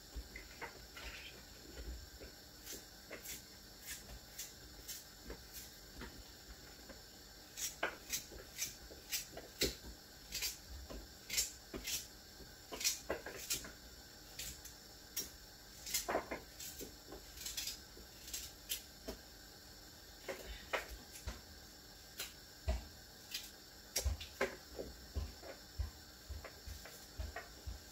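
Kitchen knife cutting carrots held in the hand over a bowl: a run of irregular sharp clicks as the blade cuts through, coming more often after the first few seconds.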